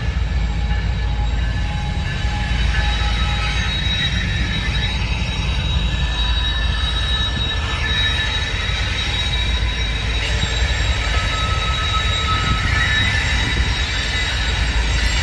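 CSX coal train running slowly through a curve, a low rumble under a steady, high-pitched squeal of wheel flanges grinding against the curved rail.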